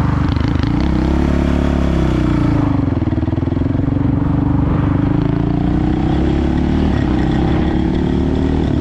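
Honda TRX450R quad's single-cylinder four-stroke engine running, its revs dropping about two seconds in and then slowly climbing back up.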